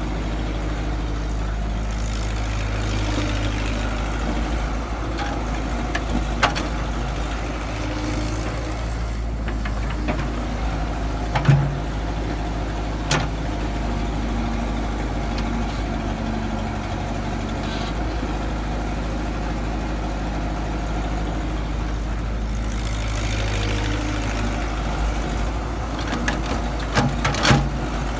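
Excavator engine running steadily, with a few short sharp knocks scattered through and a cluster of them near the end.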